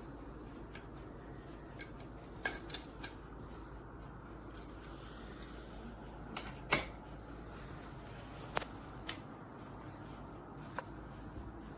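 Scattered sharp clicks and light knocks, about ten of them at uneven intervals, the loudest about seven seconds in, over a steady low hum.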